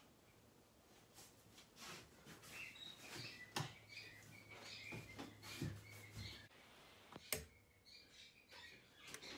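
Mostly quiet, with faint high chirps scattered throughout, and a wall light switch clicking off sharply about seven seconds in.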